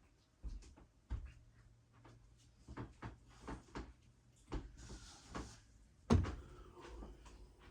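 Bambu Lab A1 3D printer's mechanism clicking and knocking irregularly during its start-of-print routine, with a brief hiss about five seconds in and a louder knock about six seconds in.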